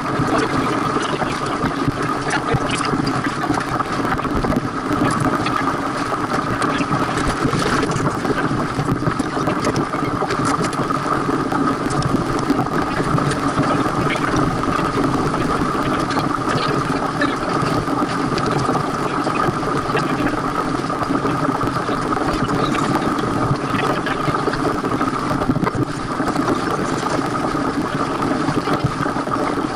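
Steady whirring rush of wind and water noise from a sailboat under way, sped up eight times.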